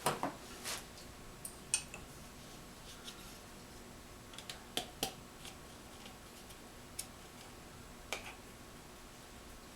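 Scattered light clicks and taps of tools and fork parts being handled, about eight irregular ticks over the stretch with the sharpest near the start, about a couple of seconds in and about halfway through.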